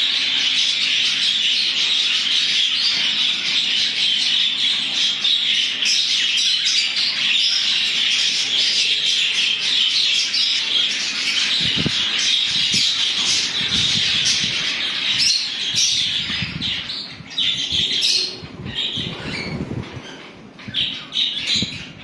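A flock of budgerigars chattering and squawking without a break in a dense, high twittering. From about halfway through, low bumps and rustles join in, and the chatter thins toward the end.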